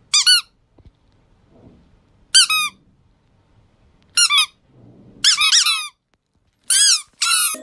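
Squeaky-toy squeaks in six short bursts, each a few quick high rising-and-falling squeaks, with pauses between them.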